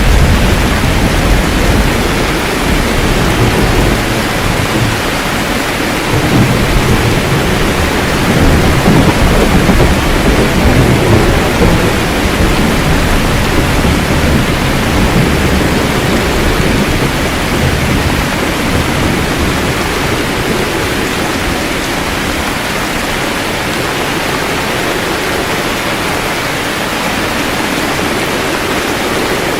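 Steady heavy rain with rolling thunder, the low rumble swelling about a quarter of the way in and dying away over the second half, leaving mostly the hiss of rain.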